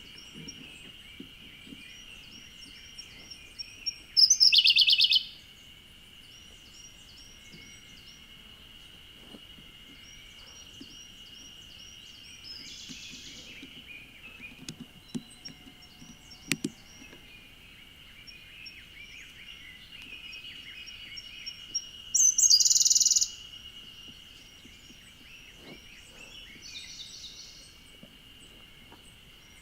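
Siberian blue robin singing. Runs of soft, high, repeated notes lead into a loud, rapid, trilled phrase, twice strongly, about four seconds in and again near twenty-two seconds, with weaker phrases between. A steady high whine runs underneath.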